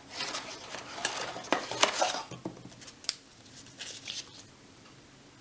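Packaging and unboxed items being handled: rustling with a string of light clicks and taps, busiest in the first two seconds, then a few scattered clicks before it goes quiet.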